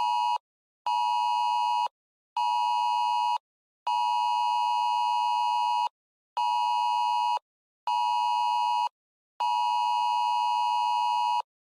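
Emergency broadcast attention tone: a steady, shrill electronic two-tone signal pulsing on and off in a long–short–short pattern of pulses lasting one to two seconds each.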